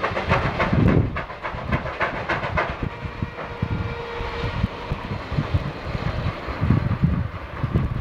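20 and 28 horsepower Minneapolis steam traction engines working in tandem under load, belted to a sawmill, their exhausts chuffing in a fast, steady rhythm.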